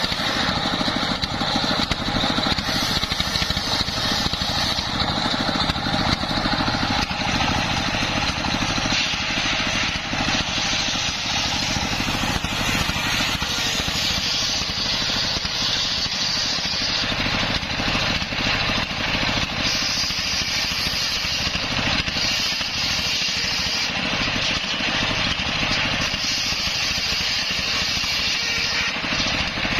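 Large table-mounted circular saw, belt-driven by a stationary diesel engine, ripping a log lengthwise: the engine runs steadily under the continuous hissing noise of the blade cutting wood. The high cutting noise grows stronger from about halfway through.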